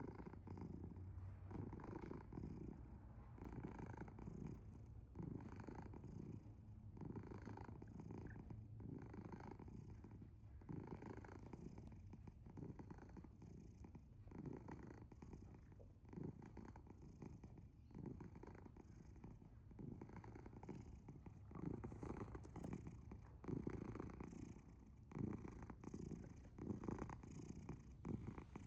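A sleeping tabby cat purring in pulses about once a second. The rumbling sits between a purr and a snore.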